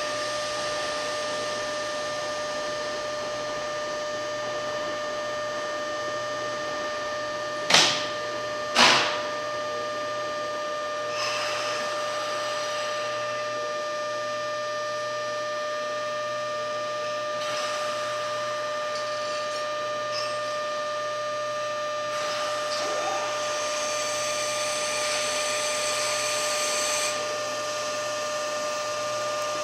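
Stationary electric train at a station platform: a steady electrical hum with a few fixed whining tones, typical of an electric multiple unit's onboard equipment running while it waits. Two sharp knocks come about eight and nine seconds in, and there are spells of hiss in the later part.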